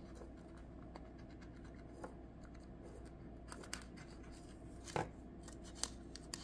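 Small scissors snipping through plastic PET craft tape, a few quiet, short, separate snips, the sharpest about five seconds in.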